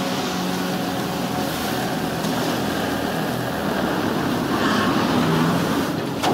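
Film soundtrack: a steady rush of rough sea water and waves with a low drone underneath.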